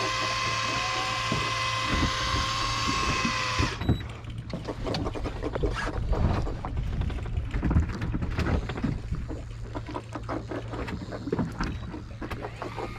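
Electric fishing reel winding in with a steady high whine that cuts off about four seconds in, followed by irregular knocks and rattles of handling on deck, over the low steady hum of the boat's engine.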